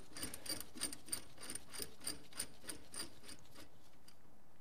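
Steel forcing screw of a hand-held VW axle bearing puller being turned out by hand, giving an even run of light metallic ticks, about five a second, that stops about three seconds in.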